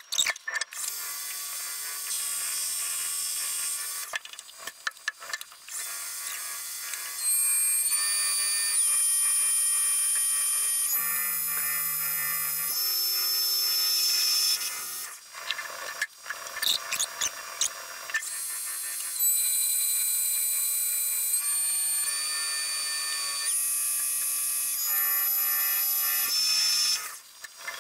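Metal lathe turning heat-treated 4140 steel, the cutting tool taking the scaly outer skin off the blank with a steady high-pitched whine that shifts in pitch in steps. Twice it breaks into a run of sharp clicks, as the tool knocks through the uneven scale.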